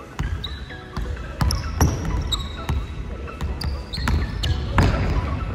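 Basketball dribbled hard on a hardwood gym floor during a one-on-one drive, a bounce about every half second, with short high sneaker squeaks as the players cut.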